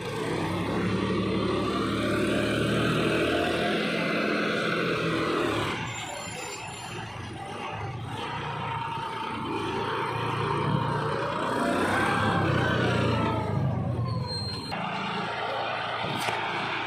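John Deere tractor's diesel engine working a front loader, revving up and easing off twice as the loader pushes and lifts.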